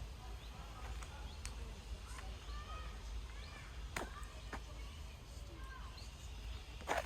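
Small birds chirping in short rising and falling calls, with a few sharp clicks and a steady low rumble underneath.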